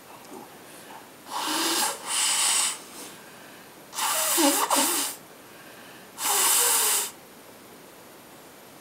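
A person blowing their nose hard into a handkerchief: four forceful blows, the first two back to back and the third the longest, with a wavering buzzy tone in it.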